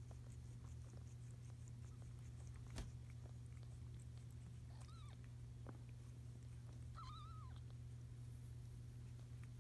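Two faint, high-pitched mews from newborn kittens, a short one about five seconds in and a longer, wavering one about seven seconds in, over a steady low hum.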